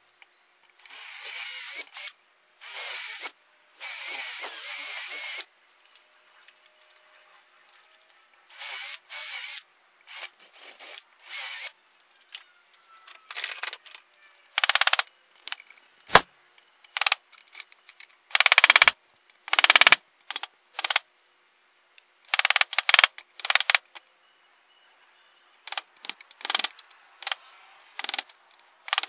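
Power drill running in repeated bursts of a second or two, boring holes through the old wooden handle stub wedged in a hatchet head's eye to clear it out. A couple of sharp knocks fall between the bursts.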